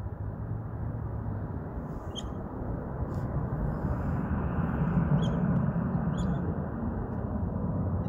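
Low, steady rumble of a distant aircraft in flight, swelling slightly in the middle, with four short high bird chirps over it.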